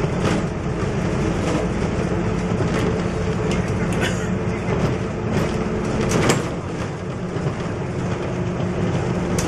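MAN NL222 city bus heard from inside while driving: its diesel engine runs steadily under road and tyre noise, with a few short rattles from the bus body, the sharpest about six seconds in.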